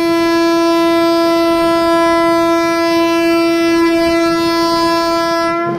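A single steady pitched tone, held at one pitch for about six seconds, that cuts off abruptly near the end.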